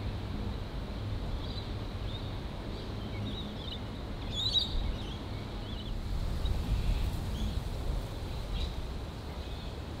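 Outdoor wetland ambience: small birds giving short, high chirps now and then, a little louder about four and a half seconds in, over a steady low rumble.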